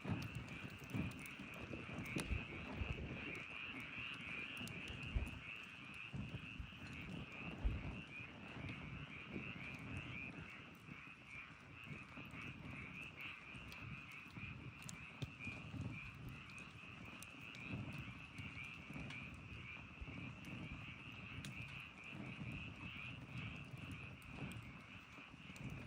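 Wood campfire crackling, with irregular soft thumps and sharp little pops, over a steady high-pitched trilling chorus from wildlife in the background.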